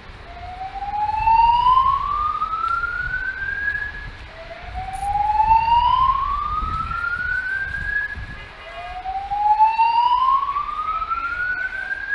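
Fire alarm slow-whoop evacuation tone: a loud tone that rises steadily in pitch for about four seconds, cuts off and starts again, three times.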